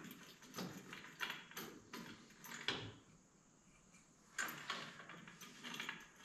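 Light, irregular metal clicks and scrapes from the parts of a core drill stand being handled and fitted together, stopping for about a second and a half partway through, then starting again.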